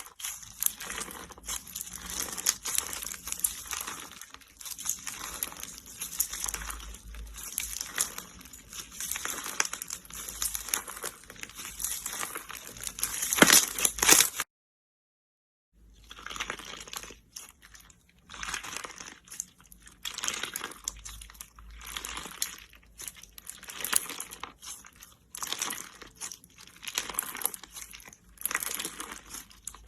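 Slime being squeezed and worked by hand: a dense, irregular run of crackling and popping clicks, cut off by about a second of complete silence at an edit about halfway through.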